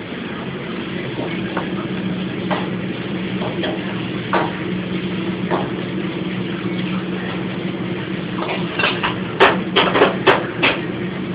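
Noodles being stir-fried in a wok: a metal utensil scrapes and taps against the pan, with a quick cluster of sharp metal clanks near the end, over a steady low hum.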